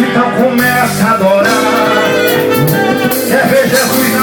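Live forró band playing, with a singer's voice over the instruments.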